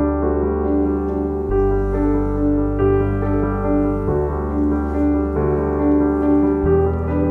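Background music: soft, sustained chords over a deep bass note, changing about every two and a half seconds.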